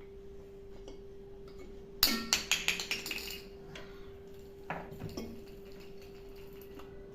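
A quick run of clinks and rattles about two seconds in, lasting about a second and a half, then a few more knocks around five seconds in, as a small bottle and its contents are handled and opened. A faint steady hum sits underneath.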